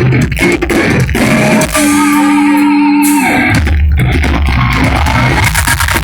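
Live progressive metal band playing loud, with electric guitar, bass and drums. Partway through, the drums drop out under a single held note for about a second and a half, then the heavy low end comes back and the drums pick up again near the end.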